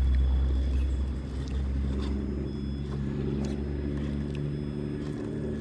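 Electric motor and gearing of a Traxxas TRX-4 RC crawler whining steadily as it crawls, with wind rumbling on the microphone, the wind strongest at the start.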